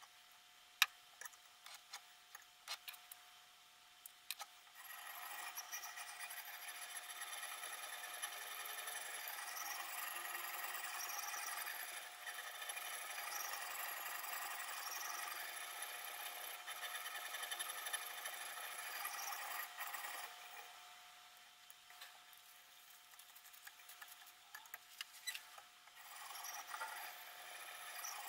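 Sharpening stone on the rod-guided arm of a Kosim knife sharpener rubbing along the edge of a clamped steel chef's knife: a steady gritty scraping from about five seconds in until about twenty seconds, then again briefly near the end. Before it come a few small clicks and knocks as the sharpener's parts are handled.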